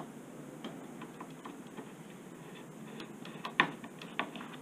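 Scattered light clicks and taps from hands and a small tool working at the screws of a wooden beehive's insulated lid, with a few quick taps about three seconds in and a louder knock just after.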